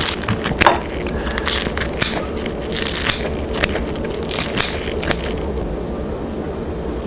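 Kitchen scissors snipping through crispy fried gimmari, seaweed-wrapped glass-noodle rolls, giving a series of crunchy, crackling cuts. The cutting stops about five seconds in.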